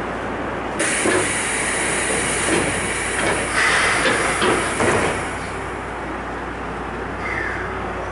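Keikyu 800 series electric train car with a sudden hiss of compressed air starting about a second in, with a few knocks, fading out after about five seconds, over a steady low hum.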